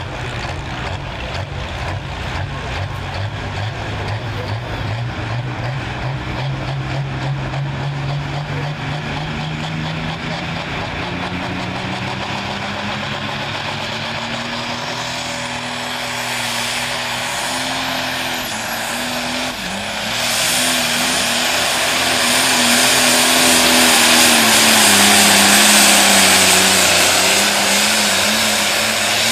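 Modified International pulling tractor's engine climbing slowly in pitch, then about two-thirds of the way in going to full power under heavy load as it pulls the weight sled, much louder and fuller, its pitch wavering and sagging a little near the end.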